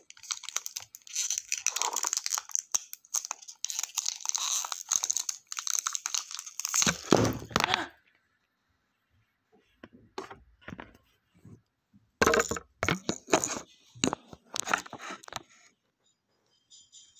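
Clear plastic shrink-wrap being picked at and torn off a cardboard palette box, crinkling and crackling in dense runs for about the first eight seconds. After a few quiet seconds, more short bursts of crinkling follow.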